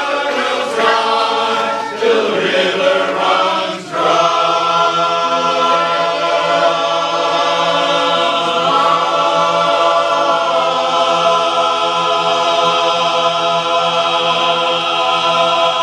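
Men's chorus singing a cappella: a few moving phrases, then a full chord held steady for about twelve seconds at the end of the song.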